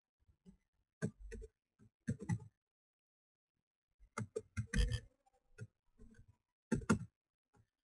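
Computer keyboard typing and mouse clicks: short clusters of sharp clacks with silent pauses between them, as a line of code is typed.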